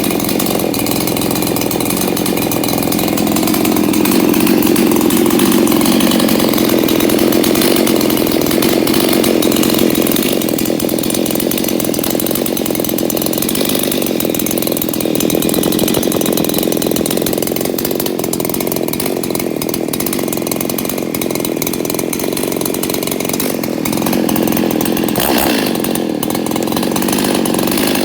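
Husqvarna 288XP two-stroke chainsaw, rebuilt with base and band cut porting and a modified muffler, running steadily on its first run after the rebuild, swelling slightly louder at times.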